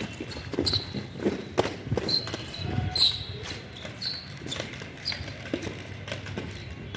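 Inline skate wheels rolling and striding on concrete, with irregular knocks and scuffs a few times a second, mixed with footsteps on the same ground.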